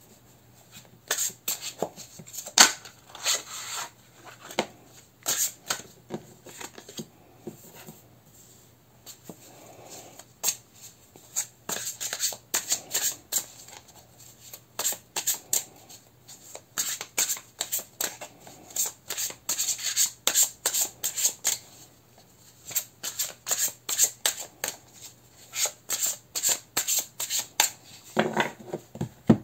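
Tarot deck being shuffled by hand: runs of quick papery card slaps and rubs, with short pauses between runs.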